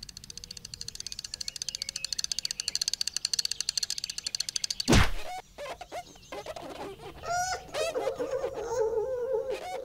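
Cartoon sound effects for an animated fly and spider: a rapid ticking for the first half, one loud thump about halfway, then a run of short squeaky chirps and a wavering whine near the end.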